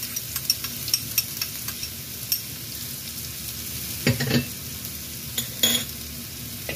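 Coarsely blended shallots and garlic sizzling steadily in hot oil in a wok. A run of light clicks in the first couple of seconds as a spoon scrapes against a bowl, and two louder bumps later.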